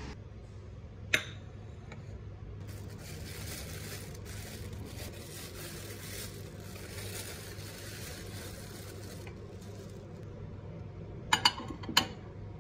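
A single sharp knock about a second in, then a ceramic bowl clinking three times against a microwave oven's glass turntable as it is set inside, the clinks ringing briefly.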